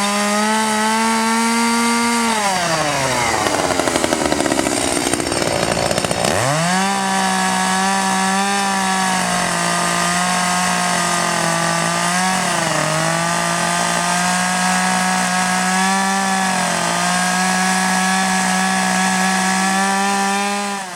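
Chainsaw revving up to high speed and holding, easing off about two seconds in, then revving up again about six seconds in and running steadily at high speed, with a couple of brief dips in pitch.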